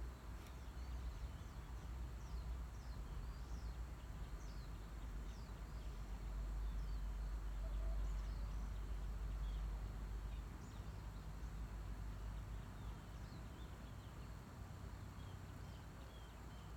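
Birds chirping, many short high calls scattered throughout, over a low rumble that swells in the middle and eases near the end.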